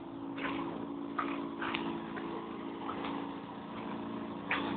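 A steady low mechanical hum, with a few short scuffs and clicks scattered through it.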